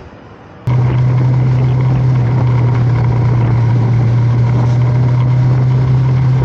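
Motorcycle engine running at a steady, unchanging pitch, loud and close, with rushing noise over it. It starts abruptly less than a second in.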